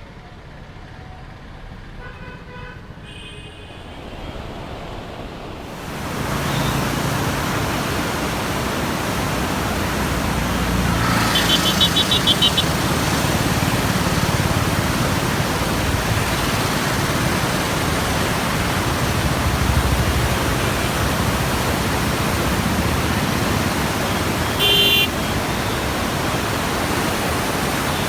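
Heavy floodwater rushing through the open gates of the Krishna barrage: a loud, steady rush that comes in suddenly about six seconds in, over quieter road traffic. Vehicle horns toot in a quick string of beeps near the middle and once more briefly near the end.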